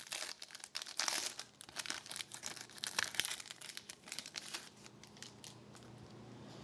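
A trading card pack's wrapper crinkling and tearing as it is opened by hand, with a run of quick, crackling clicks that thins out after about four seconds.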